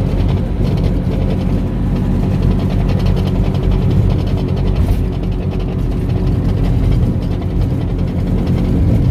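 Bajaj Qute's single-cylinder engine running steadily with a rapid metal-on-metal knocking, "hierro con hierro", that sounds "bien feo". The owner traces it to a badly worn mount ("soporte").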